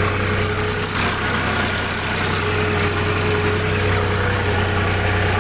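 Sonalika 42 HP tractor's diesel engine running steadily under load while pulling a nine-tine cultivator in high-range first gear: an even low hum with a faint steady whine above it.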